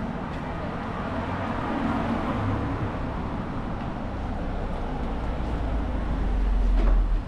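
City street traffic: a steady hum of traffic, with a vehicle's deep rumble growing louder toward the end.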